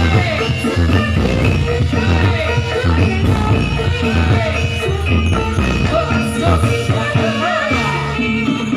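Loud music with a singing voice over a steady, driving bass beat.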